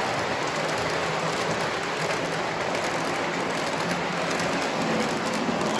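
Lionel O-gauge freight train rolling past on three-rail track: a steady, dense rattle of many cars' wheels running over the metal rails.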